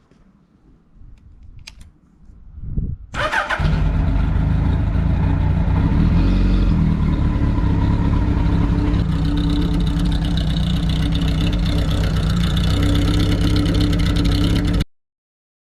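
Kawasaki KZ900's air-cooled inline-four with short exhaust pipes, starting about three seconds in and then idling steadily. The sound cuts off abruptly near the end.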